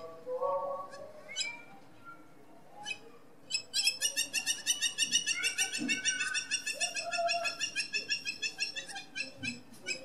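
Hamerkop giving its rollicking, laughing 'kyik-kyik-kyik' call: a fast run of sharp, high notes, about five or six a second, starting a few seconds in and running on.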